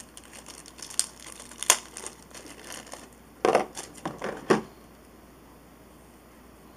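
Thin plastic packaging crinkling and crackling as small Beyblade parts are unwrapped by hand, with a cluster of sharper clicks and knocks about three and a half to four and a half seconds in.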